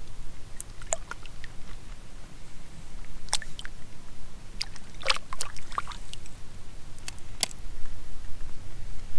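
Scattered small clicks, ticks and light water splashes from handling a caught fish while a deeply swallowed hook is worked out of it, over a steady low rumble.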